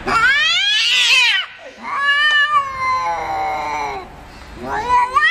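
Cats caterwauling in a face-off: long, wavering yowls. The first rises and falls in the opening second and a half, a lower drawn-out one slowly falls from about two to four seconds, and a third starts rising near the end.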